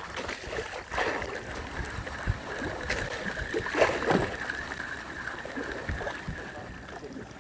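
Sea water splashing and sloshing against a small outrigger fishing boat and its bamboo floats, with a faint steady whine underneath. Louder splashes come about a second in and again near four seconds.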